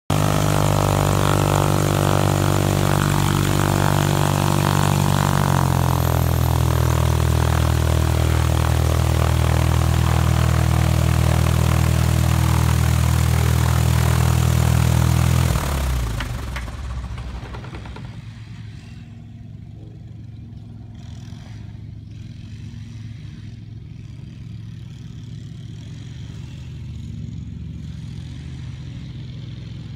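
Diamond DA40 Diamond Star light aircraft's piston engine running steadily at idle, dropping slightly in pitch about five seconds in. About halfway through it shuts down abruptly and the propeller winds down to a stop, leaving a much quieter low hum.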